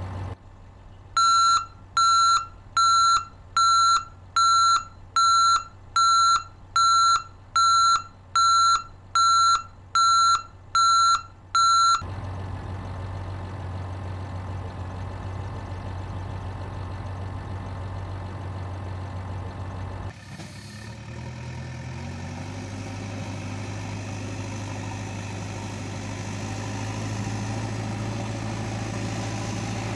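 A vehicle reversing alarm beeps evenly, about three beeps every two seconds, over a low diesel-like engine hum, stopping about twelve seconds in. The engine then runs steadily on its own; after a brief break about twenty seconds in, a second engine sound takes over and runs steadily to the end.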